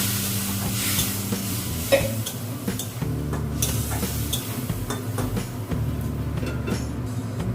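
Masala of ginger paste, turmeric and cumin sizzling in hot oil in a pan with a splash of water, being stirred with a spatula, with frequent short scrapes and clicks against the pan. This is the spice mix being sautéed before the curry's water goes in.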